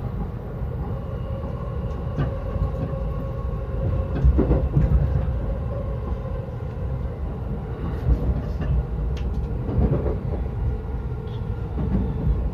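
JR Yokosuka Line commuter train running on the rails, heard from on board: a steady low rumble with a few wheel knocks over rail joints as it comes into a station.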